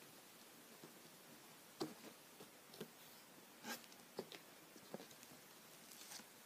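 Faint handling of a cardboard box: its flaps scraping and rustling as they are opened and a paper booklet is lifted out, with about half a dozen short scrapes and taps.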